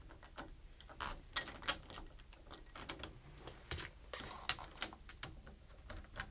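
Small irregular metal clicks and taps as the mounting screws of a new interior doorknob are started and turned in, the knob's metal parts knocking together. The clicks come unevenly, several a second.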